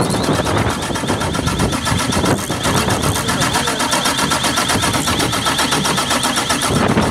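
Six-cylinder diesel engine idling with its valve cover off, the open valvetrain and electronic injectors ticking rapidly and evenly.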